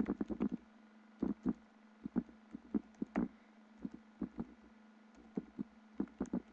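Computer keyboard typing: irregular runs of key clicks with short pauses between them.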